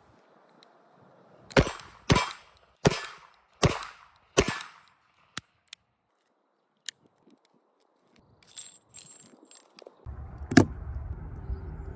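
Five pistol shots in quick succession, about two-thirds of a second apart, each with a short echoing tail, followed by a few small metallic clicks. Near the end a steady background rumble sets in and one more single shot is fired.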